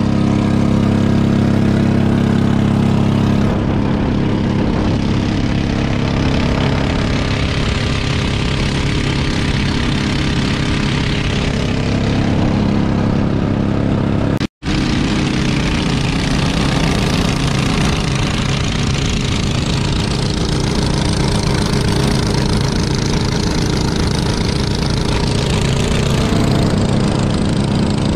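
A boat's motor running steadily, with an even engine drone that breaks off for a split second about halfway through.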